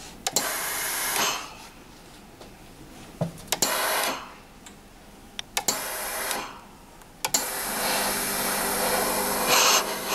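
Steam iron pressing a fabric waistband, hissing in several bursts of steam with a few sharp clicks between them; in the last couple of seconds the hiss runs on with a low steady hum under it.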